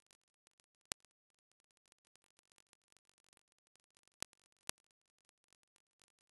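Near silence, with faint scattered crackle and three sharp clicks: one about a second in and two close together a little after four seconds.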